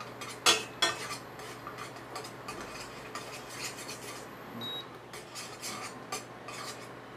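A spoon stirring and scraping butter melting in a stainless steel pot, with irregular clinks against the pot. The two loudest clinks come about half a second and a second in.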